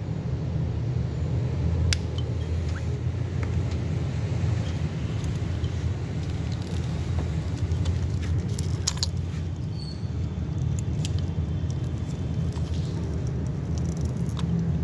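Steady low mechanical rumble, like an engine running nearby, with scattered light metallic clinks and taps of hand tools.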